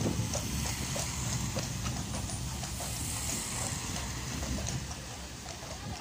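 A carriage horse's hooves clip-clopping steadily on a wet road, over a low rumble of wind on the microphone.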